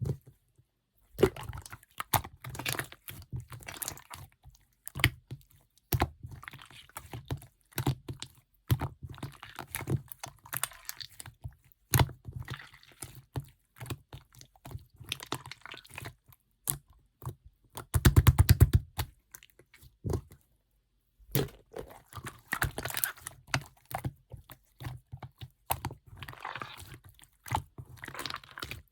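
Clear slime being squished and pressed by hand, giving runs of sharp sticky clicks and crackles with short pauses; the densest, loudest stretch comes about two thirds of the way through.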